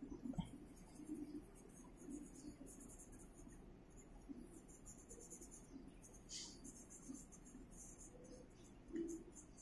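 Faint scratching of a graphite pencil on paper in short, irregular sketching strokes.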